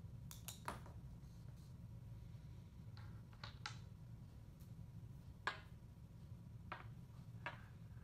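Faint scattered clicks and taps over a steady low room hum: pages of a ring binder being handled, then small red cubes set down on a tabletop, with the sharpest tap about two thirds of the way through.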